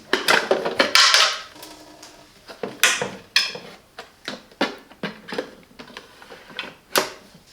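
Clicks, knocks and clatter of espresso machine parts being handled: the portafilter and filter insert knocking and scraping. A sharp click comes about three seconds in and another near the end.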